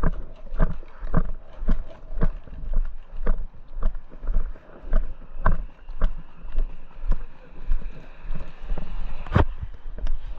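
Footsteps of a player moving at a steady walking pace, about two steps a second, on the airsoft field, with a single sharp crack about nine seconds in.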